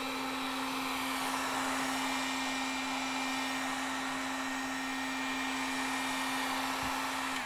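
Heat gun blowing steadily with a constant hum while heat-sealing shaved craft foam; it shuts off near the end.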